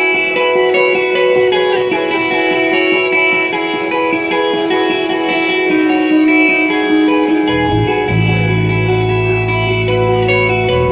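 A live band playing an instrumental passage led by sustained guitar notes. Low bass notes come in about three quarters of the way through.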